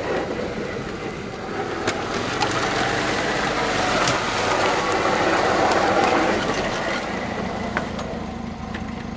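Lada Niva's four-cylinder engine idling steadily, with a few sharp clicks over it. A louder rushing noise swells in the middle and fades again.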